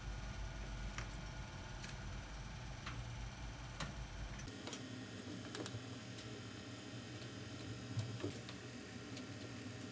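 Faint, scattered small clicks and taps, roughly one every second or two, from handling and seating a CPU heatsink during refitting. A low hum underneath drops out about halfway through.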